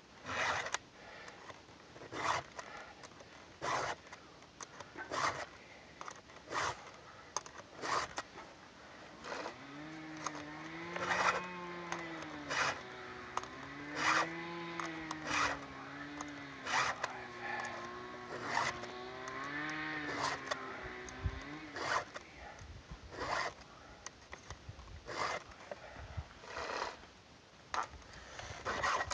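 Hand file strokes across the cutters of a Stihl MS 290 saw chain, a short rasp every second or so, as the chain is sharpened tooth by tooth. From about ten seconds in until about twenty-two seconds, a distant chainsaw revs up and down under the filing.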